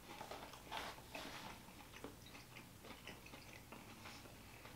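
Faint chewing and mouth sounds of people eating franks in a blanket, small hot dogs baked in pastry, with a few soft clicks now and then.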